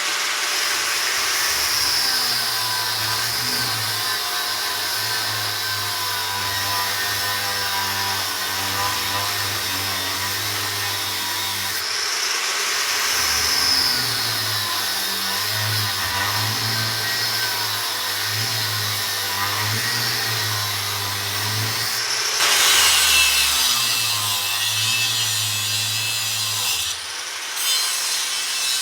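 A 5-inch angle grinder cutting through the metal stem of a crevice scraper. Its high whine dips and recovers in pitch as the disc bites. It gets louder and harsher about three-quarters of the way through.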